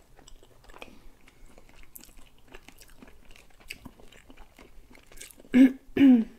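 Close-up eating sounds of rassolnik soup from a wooden spoon: faint chewing and small mouth clicks, then two loud, short slurps from the spoon near the end.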